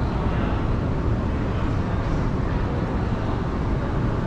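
Steady low rumble of a moving walkway running underfoot.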